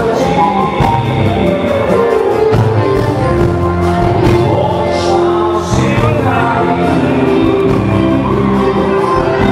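Live sertanejo music from a stage band, with singing voices over the instruments.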